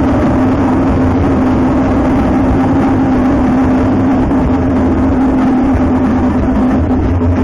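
Timber Wolf Grand slot machine's bonus wheel spin sound effect: a loud, steady whirring hum with a low drone while the wheel turns.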